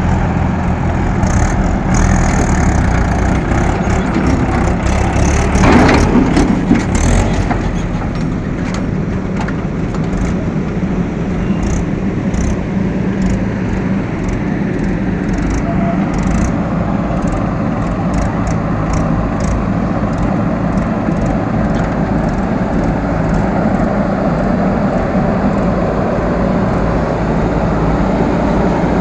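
Diesel engines of backhoe loaders and a tractor running steadily at work, with scattered clanks and a louder noisy burst about six seconds in.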